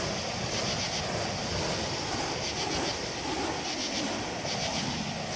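Burning wicks of a spinning fire hula hoop making a steady rushing roar, with faint quick whooshes repeating as the flames sweep past.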